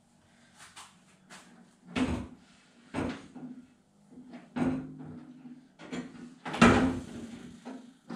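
Four knocks and clunks from handling the open door and door glass of a 1970 Datsun 521 truck, the loudest near the end, over a faint steady low hum.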